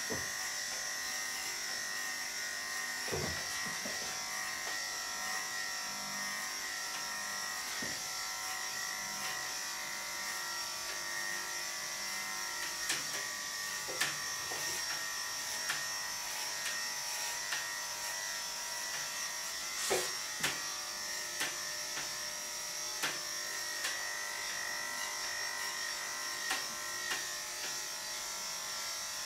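Electric dog grooming clippers running steadily as they shave a dog's belly coat, a continuous high-pitched buzz with scattered light clicks.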